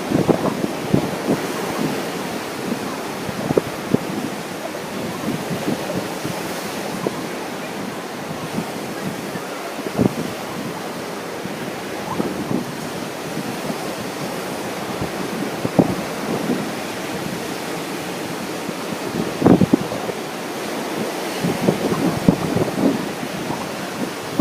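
Ocean surf rushing steadily, with wind buffeting the microphone in sharp gusts, the strongest about halfway through and again near the end.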